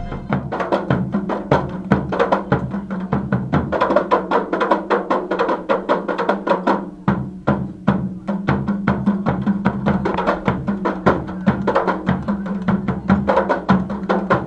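A group of kompang frame drums beaten by hand in a fast, dense interlocking rhythm, many sharp strokes a second without a break, over a steady low tone.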